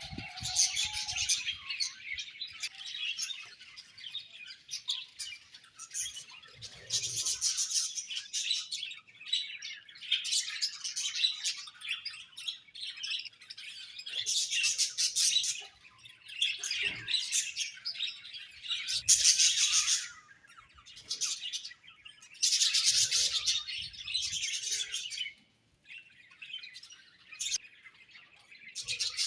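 Budgerigars chattering and warbling, a steady stream of twittering chirps that comes in loud bouts of a second or two, with a brief lull about 25 seconds in.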